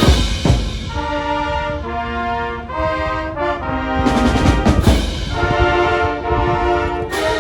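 A high-school marching band playing: brass blocks out sustained chords that change about once a second, with drum and cymbal hits underneath.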